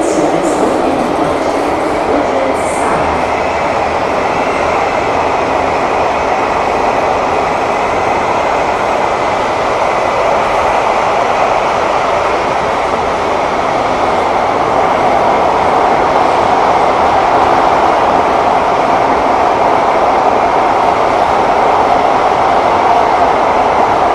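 Thomson-East Coast Line MRT train running, heard from inside the carriage: a steady rush of wheels on rail and running gear that grows a little louder about halfway through.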